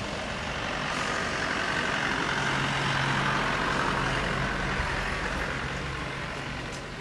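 Airbus A350's Rolls-Royce Trent XWB engines running at low taxi power as the airliner rolls past, a steady rushing hum that grows to its loudest about three seconds in and then eases a little.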